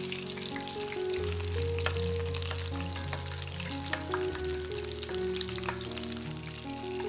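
Scotch eggs deep-frying in hot oil: a steady, dense sizzle with frequent sharp pops. Background music with sustained notes plays under it.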